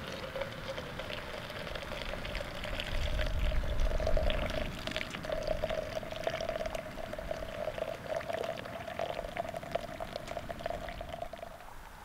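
Hot liquid poured in a thin steady stream from a pot into a drip coffee filter bag on a metal camp mug, its trickling pitch rising slightly as the mug fills, stopping shortly before the end.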